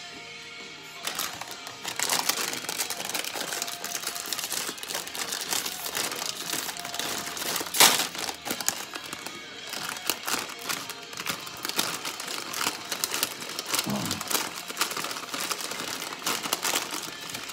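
Plastic instant-noodle packet crinkling and rustling as gloved hands handle and open it, with one sharp louder crackle about eight seconds in.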